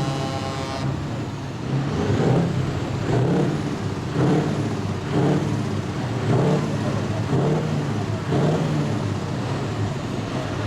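Scania truck engine revved over and over, about once a second. A multi-tone air horn cuts off just under a second in.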